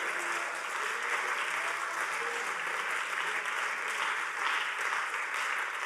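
Crowd applauding, a steady mass of clapping.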